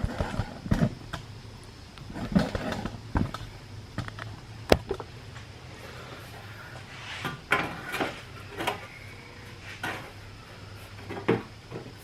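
Irregular knocks, taps and clatter from a piece of sheet metal being handled and test-fitted, with one sharp click near the middle, over a steady low hum.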